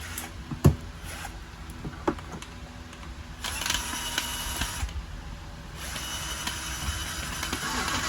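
A few light plastic clicks, then a small electric motor whirring steadily from about a third of the way in. It eases off briefly and starts again near the end.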